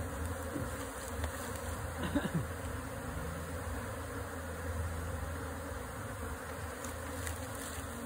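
Steady buzzing drone of a large honey bee colony disturbed during its removal from a tree trunk, the bees swarming as they move into a hive box.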